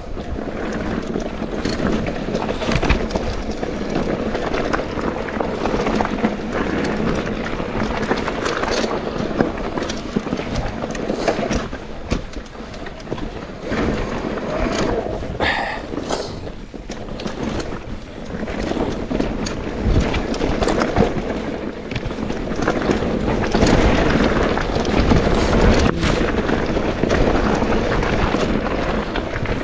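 Mountain bike descending a trail: knobby tyres rolling over dirt and gravel, with the bike clattering and knocking over bumps and wind on the camera mic. A brief squeal comes about halfway, and the run gets louder near the end.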